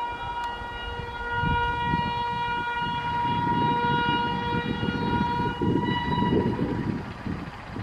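Electric locomotive horn held in one long, steady shrill note that fades out about six seconds in, over the growing rumble of an approaching train.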